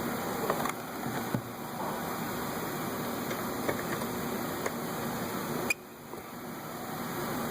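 A steady background hiss with a few light clicks and taps from handling plastic parts. The hiss drops suddenly about three-quarters of the way through.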